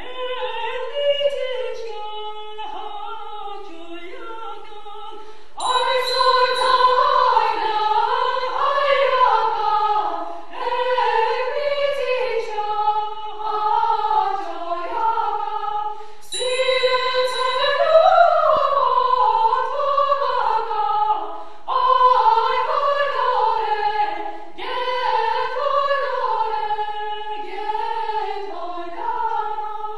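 Women's choir singing a cappella in a series of melodic phrases with brief breaks between them; softer for the first few seconds, then fuller and louder from about five seconds in.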